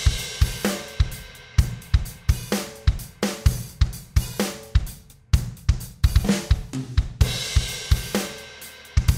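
Outro music: an up-tempo rock drum-kit beat of kick, snare, hi-hat and cymbals, with a brief break about five seconds in.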